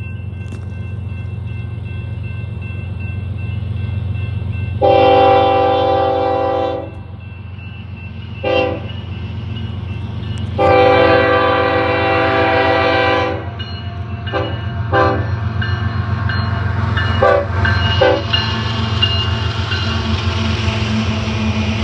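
Union Pacific diesel freight locomotives approaching and passing a grade crossing. The air horn sounds a long blast, a short one, a longer blast, then several short toots, over the steady rumble of the engines, which grows louder near the end as the locomotives pass close by.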